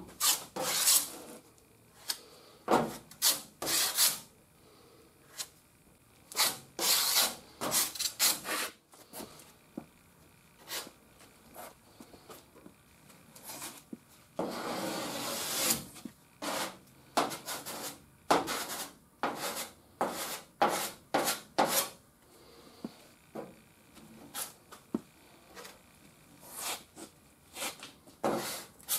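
Body filler being spread with a hand spreader over a sanded metal wheel arch: a series of short scraping strokes, with one longer, steadier scrape about halfway through.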